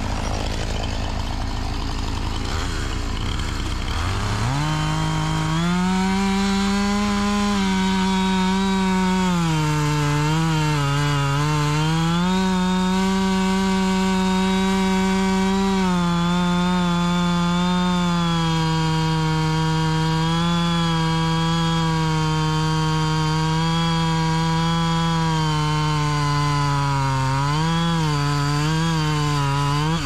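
Two-stroke chainsaw revving up to full throttle about four seconds in and cutting through a large log, running high and steady with brief dips in pitch as it takes the load in the wood.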